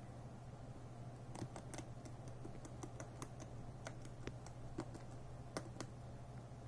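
Rabbit gnawing an applewood stick: quick, irregular crunching clicks of its teeth biting into the wood, about three or four a second, starting about a second and a half in and stopping shortly before the end, over a steady low hum.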